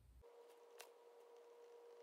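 Near silence: faint room tone with a steady electrical hum, and two faint light taps within the first second.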